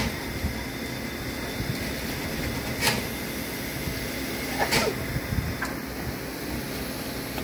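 Steady hiss and hum of a Prussian P8 steam locomotive, 38 2267, standing at rest, with a few sharp clicks about three and five seconds in.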